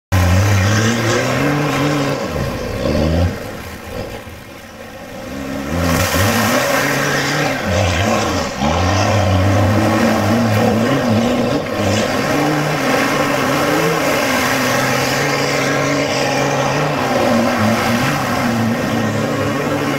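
Four-wheel-drive's engine running and revving off-road, its pitch rising and falling, with a brief easing off about four to five seconds in. It starts abruptly from silence.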